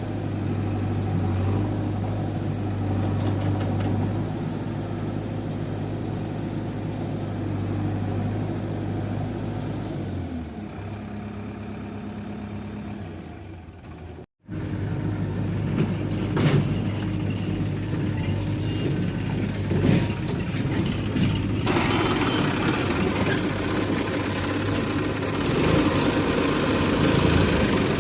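Diesel engine of heavy farm or construction machinery running steadily. About halfway through, the sound changes, then cuts out abruptly and returns: engine again, with a few sharp knocks.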